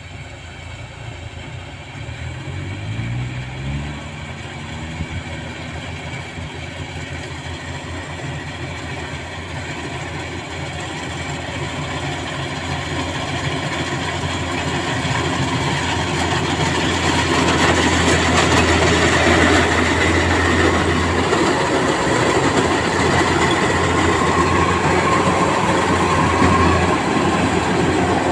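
Kubota tracked rice combine harvester running as it cuts and threshes rice, growing steadily louder as it comes closer. Its engine revs up about three seconds in, under a dense, steady mechanical clatter.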